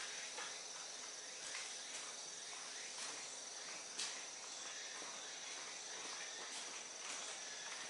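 Faint background only: a steady high-pitched whine over a soft hiss, with two faint ticks about three and four seconds in. The RC buggy's engine is not running.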